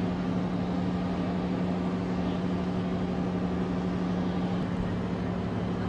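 Steady low hum of a large ship's engines and machinery: one deep held tone with fainter tones above it, under an even rushing noise.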